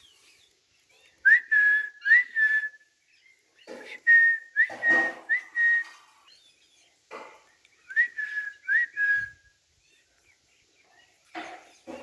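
Parakeet whistling: short clear whistled notes in twos and threes, each a quick upward slide into a held tone, mixed with a few harsher squawk-like calls.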